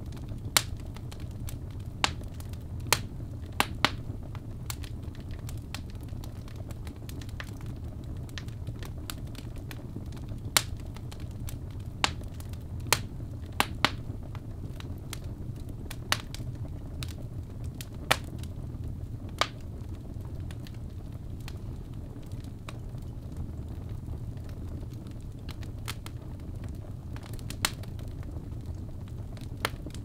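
Fireplace fire crackling: sharp, irregular pops and snaps over a steady low rumble of burning. The pops come thickest in the first twenty seconds, then grow sparse.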